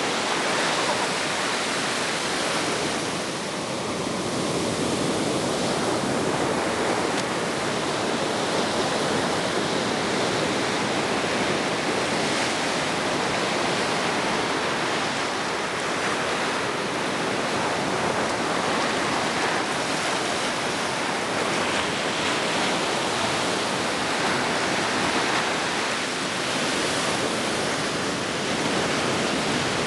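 Ocean surf: a steady, constant hiss of waves breaking and washing.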